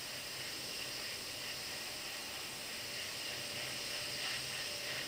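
Steady, even background hiss with no distinct event.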